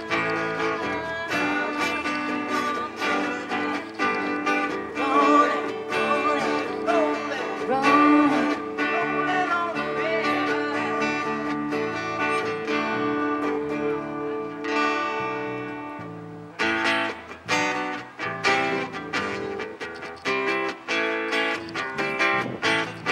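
Small live band playing strummed acoustic guitars together with electric guitars. Sustained chords run with gliding melodic lines over them, then about two-thirds of the way through the playing changes to short, separated chord hits.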